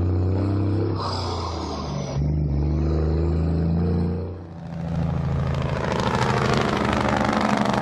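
Big-rig diesel truck engine running steadily, then, after a brief dip about four and a half seconds in, growing louder with a fast, even pulsing.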